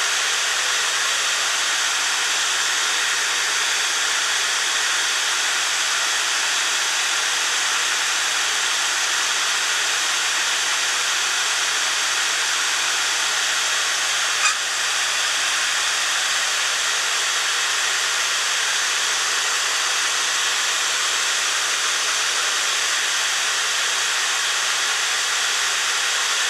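Big blower fan running with a steady, even whoosh while it cools a 400-watt Peltier module. There is one brief click about halfway through.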